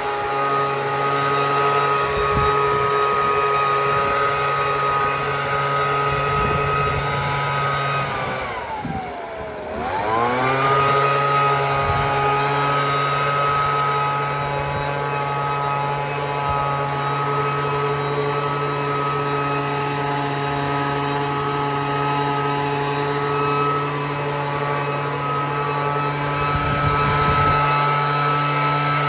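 A motor-driven machine drones steadily with several held tones. About eight seconds in its pitch sags steeply, as if it is winding down, and a couple of seconds later it winds back up to full speed.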